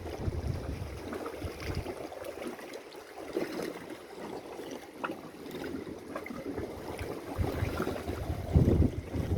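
Sea water sloshing and lapping against shoreline rocks, with gusts of wind buffeting the phone's microphone.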